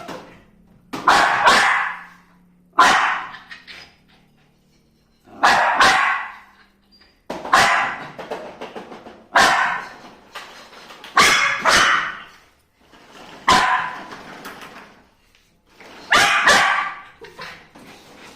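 A dog barking repeatedly, about one drawn-out bark every two seconds, eight in all. Each bark starts sharply and trails off over about a second.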